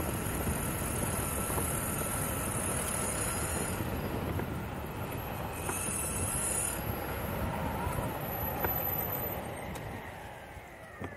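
Electric skateboard with hub motors and urethane wheel sleeves rolling fast on asphalt: a steady road rumble with a thin high electric whine that comes and goes. The rolling noise drops away near the end as the board slows.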